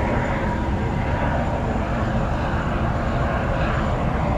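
Steady wind rumble buffeting the microphone on the deck of a ship under way, with a faint steady whine above it.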